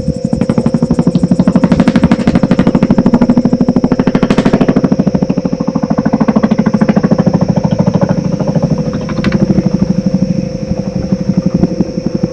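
Designed film soundscape: a rapid, even pulsing throb over a steady mid tone and a thin high tone. A brief hiss swells about four and a half seconds in, and the pulsing eases a little toward the end.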